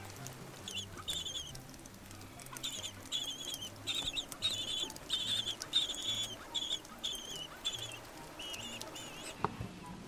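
Little blue penguin (korora) chicks begging for food: about a dozen short, high-pitched, wavering peeps in quick runs, loudest in the middle. There is a single sharp tap near the end.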